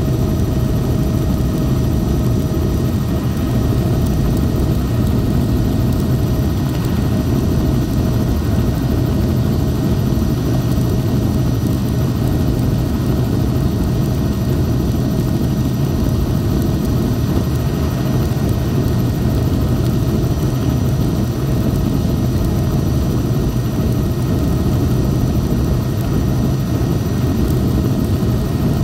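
Helicopter in flight heard from inside the cabin: a steady, loud drone of rotor and turbine engine with a thin steady whine on top.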